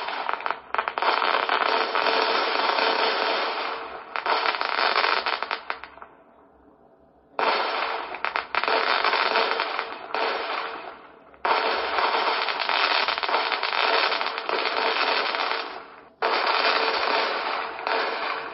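Fireworks display: a dense, continuous barrage of shells bursting and crackling, with a short lull about six seconds in before the barrage starts again suddenly.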